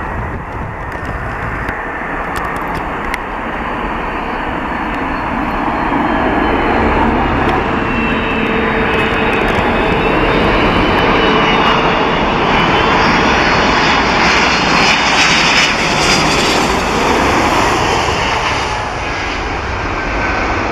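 Boeing 747-400 jumbo jet on final approach, its four Pratt & Whitney PW4056 turbofan engines making a loud, dense jet noise with a faint high whine. The noise grows steadily louder as the aircraft comes in low overhead to land, peaks past the middle, and eases slightly near the end.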